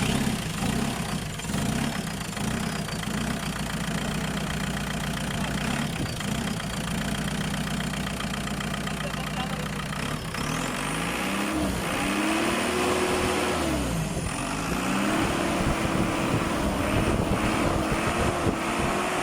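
JCB backhoe's diesel engine running at a steady idle, then revved up twice: the first time held for a second or so and let back down, the second time held high. It keeps running without stalling after a repair for an engine that kept cutting out.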